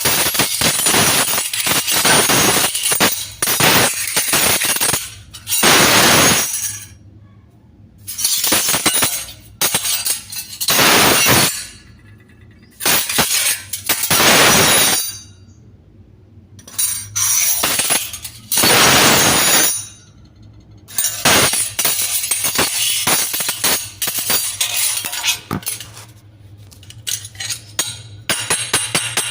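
Many steel spoons clinking and clattering together: rapid scattered clinks at first, then a run of jangling bursts about a second long each with short pauses between, then quick clinking again that turns into an even rhythm near the end.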